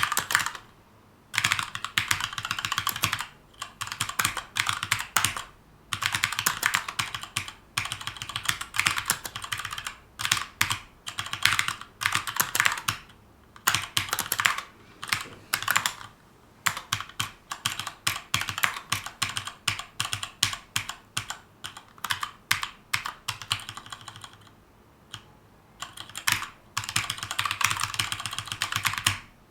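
Typing on a Keychron K2 mechanical keyboard with an aluminum frame and brown tactile switches: quick runs of key clicks broken by short pauses, the longest a couple of seconds near the end.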